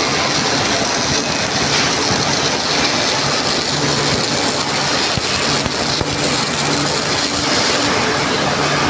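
Automated welding rig for a fuel tank running: a steady, dense hiss with a faint low hum underneath.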